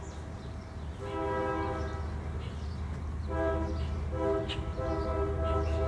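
Train horn sounding in long, held chord blasts, two of them with a short gap between, over the low rumble of a passing train.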